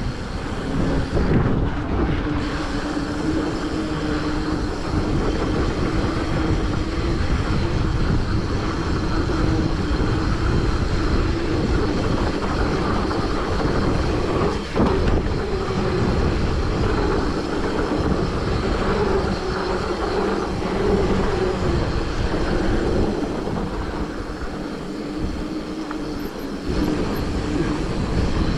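Mountain bike riding down a dirt trail: wind rushing over the mounted camera's microphone and tyres rolling over dirt, with a steady, wavering hum and a few brief jolts.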